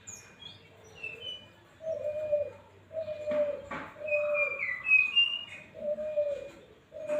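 A young brown-chested jungle flycatcher (sikatan rimba dada coklat) chirping short high slurred notes, over a series of low, slurred coo-like notes repeated about once a second.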